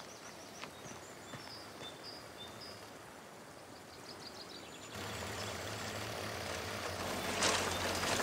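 Quiet outdoor ambience with faint bird chirps. About five seconds in, it cuts to a steady rush of water running through a gold-washing sluice box, with a low hum beneath it and a brief louder rush near the end.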